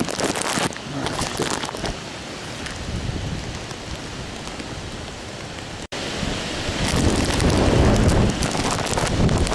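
Hurricane Sandy's wind and rain, gusting and buffeting the microphone. The sound cuts out for an instant about six seconds in, then the wind comes back louder and deeper for the last few seconds.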